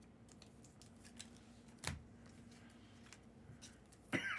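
Trading cards and packs being handled at a table: faint scattered clicks and a single sharper snap about two seconds in. A brief voice sound near the end.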